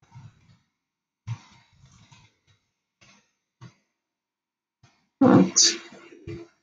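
A few faint short sounds, then a loud throat-clearing cough a little past five seconds in, lasting over a second.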